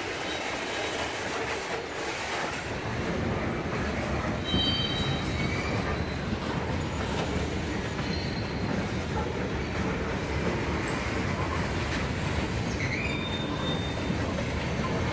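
Freight train hopper cars rolling past, steel wheels rumbling on the rails, the rumble growing heavier about two seconds in. Brief high-pitched wheel squeals come a few seconds in and again near the end.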